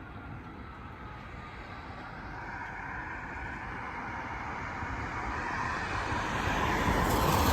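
Pierce Enforcer fire engine approaching with its siren sounding, growing steadily louder.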